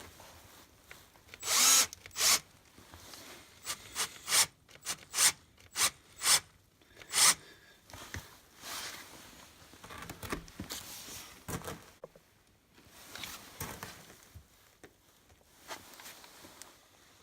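Power drill driving screw-in steel grip studs into a rubber excavator track, in a series of short bursts that are loudest in the first half.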